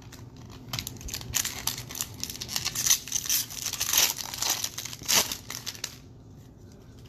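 A Topps baseball card pack's wrapper being torn open and crinkled in the hands. A dense run of sharp crinkling starts about a second in and stops about six seconds in.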